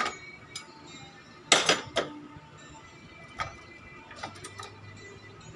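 Sharp metallic clicks and knocks of tools and engine parts being handled during a cylinder head teardown. A few scattered clinks, with the loudest cluster about a second and a half in.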